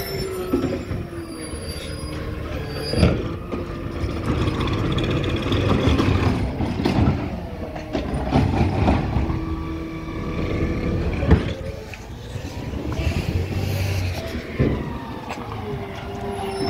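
Natural-gas automated side-loader garbage truck running as it pulls up and stops, its engine note rising and falling. Several short sharp sounds, one of them loud about 11 seconds in, sound above the engine.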